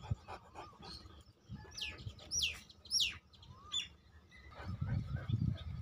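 Bird calls: two loud calls that sweep downward in pitch, about half a second apart, with a few fainter chirps around them. A low rumbling noise comes near the end.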